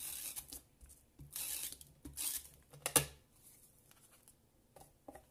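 Paper and card rustling and rubbing in short scratchy strokes as a paper piece is handled and pressed onto a box lid, with a sharp tap about three seconds in.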